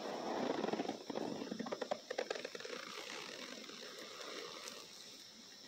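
Hand digging into and squeezing loose cornstarch powder, making a dense crunching of many quick fine crackles over the first couple of seconds. It then gives way to a softer hiss as the powder sifts back into the tub.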